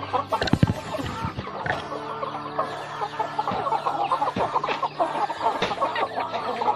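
A backyard flock of Bangkok, Pelung and kampung chickens clucking continuously. A few sharp knocks sound among them, the loudest about half a second in.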